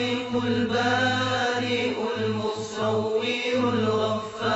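Background music: a chanted vocal with long held notes over a steady low drone.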